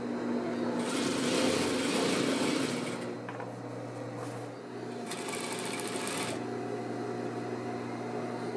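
Industrial sewing machine stitching fabric in two runs, the first from about a second in to three seconds and the second around five to six seconds, over a steady low hum.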